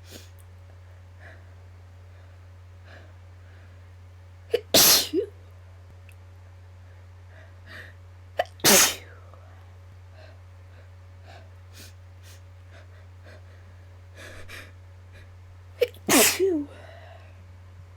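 A woman's induced sneezes: three loud sneezes, about five, nine and sixteen seconds in, each with a sharp catch just before the main burst. A steady low hum sits underneath.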